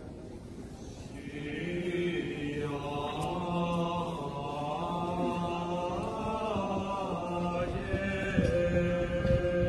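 Slow chant sung in long held notes, swelling in about a second and a half in.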